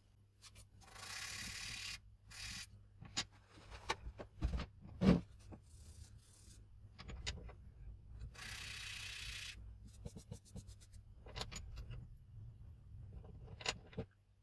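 Shimano XT disc brake pads being rubbed on 800-grit sandpaper to scrape off their smooth factory surface: two long sanding rubs, about a second in and again about eight seconds in, among light clicks and knocks from handling the pads.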